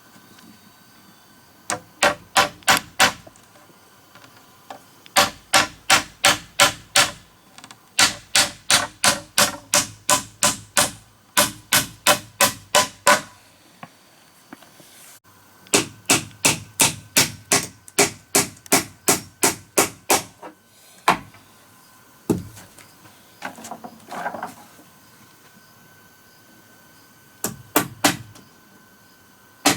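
Quick runs of hammer blows, about four strikes a second, in several bursts separated by short pauses.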